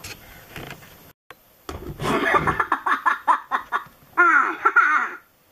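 High-pitched, cartoonish Minion-style laughter: a rapid run of giggling syllables starting about two seconds in, then a drawn-out squeal that falls in pitch near the end.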